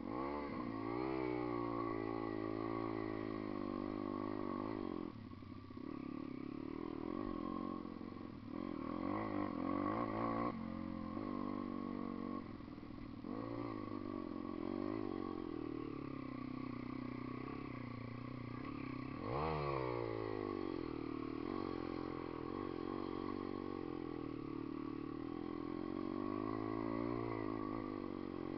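Dirt bike engine under way, its revs rising and falling over and over with the throttle, with a sharp rev-up about two-thirds of the way through.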